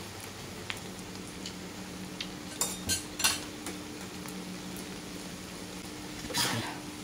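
Egg omelette deep-frying in plenty of oil in a stainless steel wok, sizzling steadily. A metal utensil clinks against the wok a few times about three seconds in, and there is a longer, louder scrape near the end.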